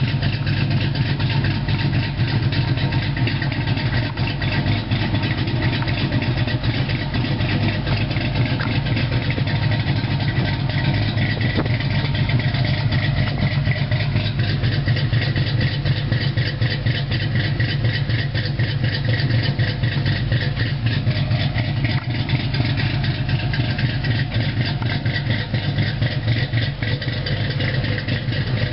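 Modified Ford Mustang 3.8-litre V6 with a custom camshaft idling steadily through long-tube headers, an H-pipe and Flowmaster 40 mufflers, with a low exhaust note and no revving.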